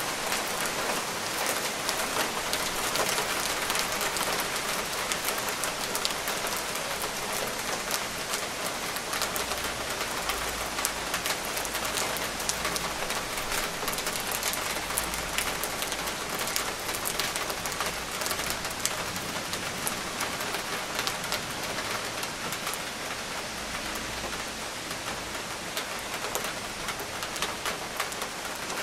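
Steady rain falling, a dense even hiss with many sharp individual drop hits on nearby surfaces. A faint low rumble swells and fades around the middle.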